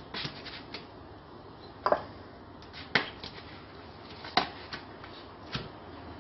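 Handling clatter as raw minced meat is pulled out of a plastic tray by hand and put into a frying pan: four sharp clicks and knocks, about a second apart, with a few softer ones between.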